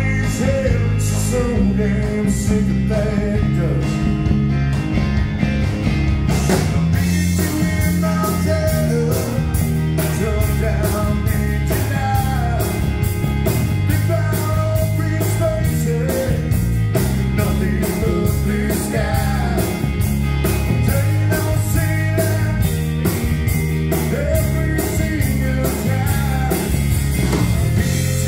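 A rock band playing live: electric guitars and drum kit with a sung lead vocal. The drums settle into a steady beat about six seconds in.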